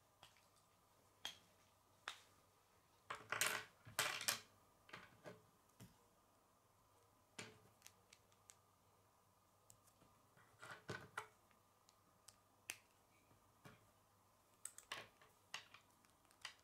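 K'nex plastic rods and connectors clicking and rattling as they are handled and snapped together by hand, in scattered clicks with a louder cluster about three to four seconds in.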